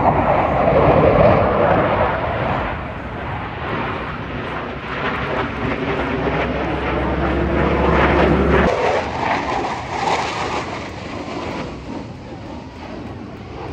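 Blue Angels F/A-18 Super Hornet jets flying past, loud about a second in and again around eight seconds, then fading.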